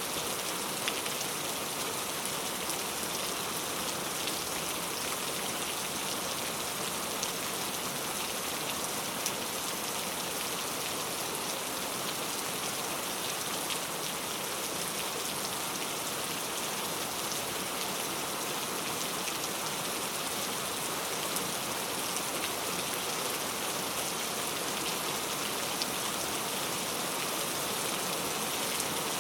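Steady rainfall, a constant hiss with many small drop ticks and no change in intensity.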